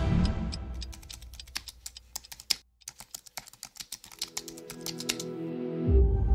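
A quick, irregular run of sharp clicks, like typing on a keyboard, with a brief pause partway through. Music fades out as the clicks begin and swells back in near the end.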